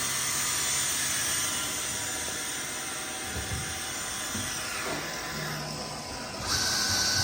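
Tsugami BE-12V CNC Swiss-type screw machine running with its main spindle at 8,000 RPM and sub spindle at 4,000 RPM: a steady high hiss and whine of machining. It eases off with a falling sweep in pitch around the middle, then a louder, higher hiss starts about six and a half seconds in.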